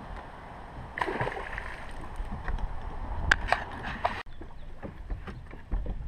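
Deck noise on a fiberglass bass boat: scuffs and knocks as the angler moves about, with a couple of sharp clicks about three and a half seconds in, over a steady low rumble.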